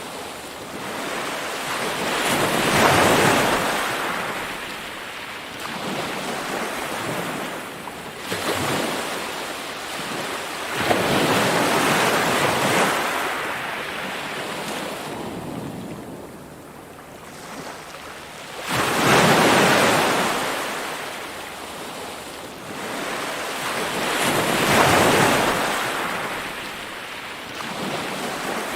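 Ocean waves breaking and washing up, surging and falling back about five times, every five to six seconds.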